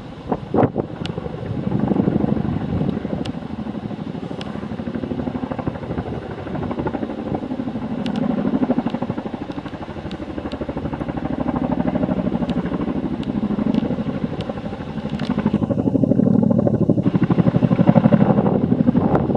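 Boeing Chinook tandem-rotor helicopter flying low overhead, its twin rotors making a fast, even beating. The sound swells and fades a few times and grows louder toward the end as the helicopter comes almost directly overhead.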